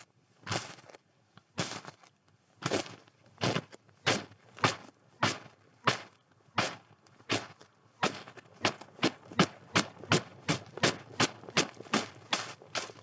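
Footsteps crunching in snow. They start at a slow walking pace of about one step a second, then quicken to about three steps a second for the last few seconds.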